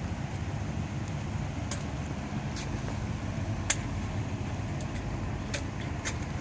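Pontiac G6 GXP's engine idling steadily, with scattered sharp ticks of raindrops.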